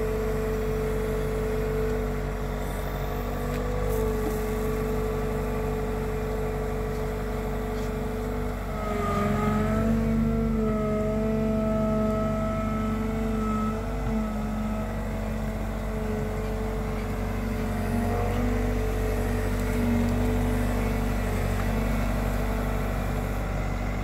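Bobcat T66 compact track loader's diesel engine running steadily with a whine over it. About nine seconds in it grows louder and a higher whine joins in for several seconds as the loader carries a full bucket of dirt.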